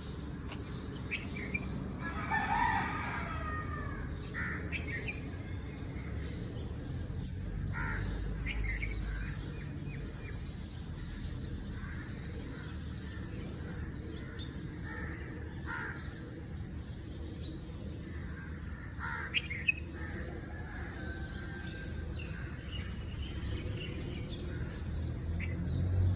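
Outdoor birds chirping in short, scattered calls, with a rooster crowing once about two seconds in, over a low steady background rumble.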